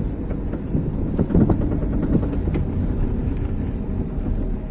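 Front-wheel-drive car driving slowly while steered to the right, a steady low engine and road rumble with a few faint scattered ticks. This is a turning test for a worn front axle CV joint.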